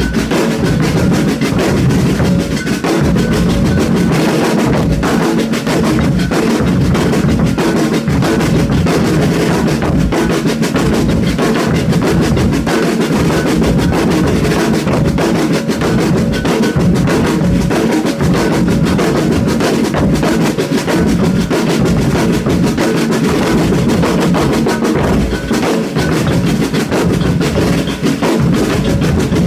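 Percussion ensemble drumming a fast, dense rhythm without a break.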